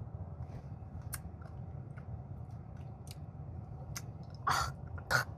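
A person taking a first sip of a frozen strawberry slush topped with Nerds candy: scattered small clicks and crunches, then two short, loud breathy bursts near the end.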